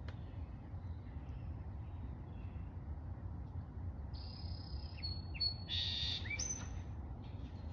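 A songbird singing: a short phrase of high whistled and buzzy notes about four to seven seconds in, over a steady low rumble.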